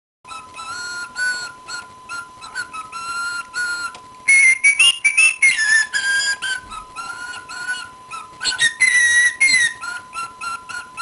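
A male cockatiel singing: a string of whistled notes and warbling phrases that slide up and down. It gets louder for a stretch about four seconds in and again near nine seconds.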